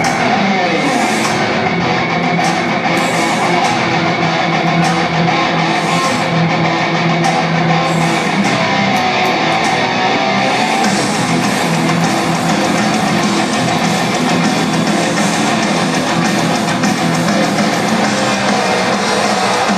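Heavy metal band playing live: distorted electric guitars over a drum kit, with sharp cymbal strikes in the first half, heard from the audience in a large hall.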